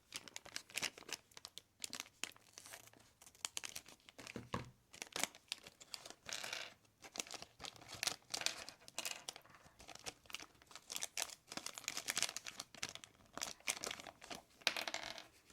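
Plastic LEGO minifigure blind-pack bag crinkling as it is handled and torn open, a dense run of irregular crackles throughout.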